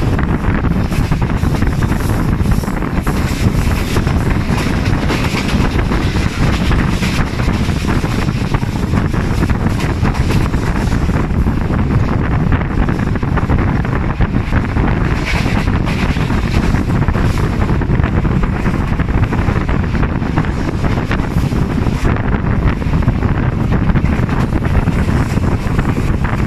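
Wind rushing over the microphone at the open window of a passenger train running at speed, with the train's running rumble beneath: a loud, steady roar.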